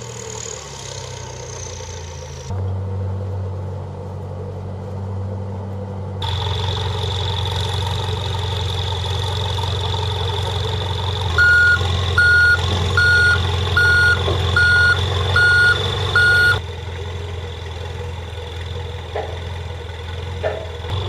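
Aircraft tow tractor's engine running steadily while it moves the Super Guppy, with its reversing alarm beeping seven times, about one and a half beeps a second, around the middle.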